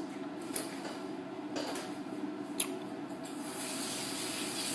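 Steady room hum broken by a few sharp clicks. About three seconds in, a rushing hiss of running water from a tap starts and grows louder.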